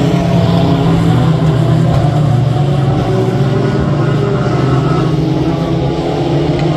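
A pack of compact pickup race trucks running hard together, several engines at once, their overlapping engine notes shifting in pitch.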